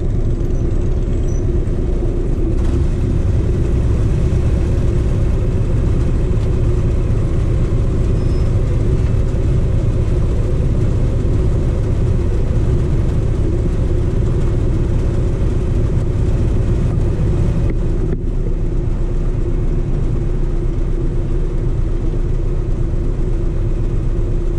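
Harley-Davidson V-twin motorcycle engine idling steadily at a standstill.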